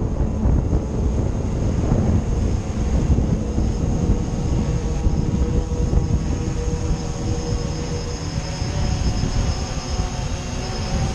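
Gale-force wind buffeting the microphone in an uneven low rumble, with the steady high whine of a quadcopter drone's propellers running through it.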